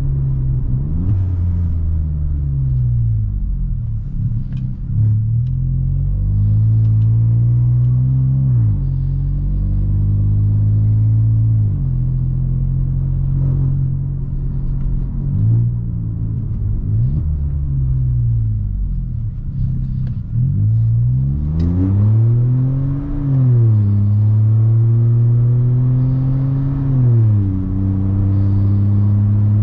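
Loud, low drone of a Volkswagen T-Cross's 1.0 turbo three-cylinder running with its exhaust disconnected after the catalytic converter, open pipe without the intermediate section. The pitch climbs as the car accelerates and drops back at each gear change, many times over, with a few stretches of steady cruising.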